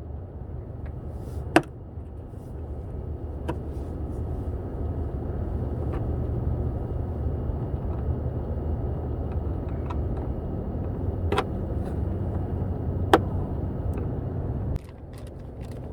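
Steady low rumble of a motor vehicle running, with a few sharp clicks scattered through it; the rumble drops away abruptly near the end.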